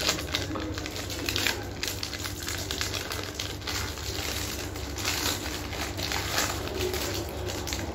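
Plastic ice-cream bar wrapper crinkling in irregular crackles as it is handled and torn open.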